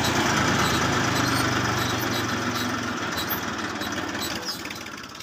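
An engine idling with a steady low hum, fading out over the last couple of seconds.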